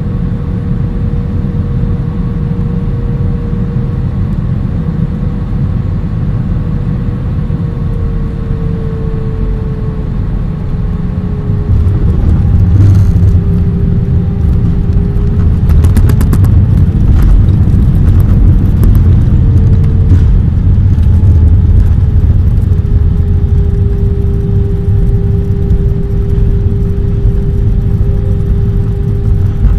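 Jet airliner landing, heard from inside the cabin: a steady engine and airflow rumble with an engine tone that sinks slightly in pitch. About twelve seconds in, the wheels touch down; the rumble gets louder and knocks and rattles follow for several seconds as the plane rolls out along the runway.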